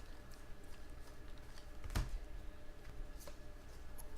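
Faint clicks and taps of trading cards being handled and set down, with one sharper tap about two seconds in.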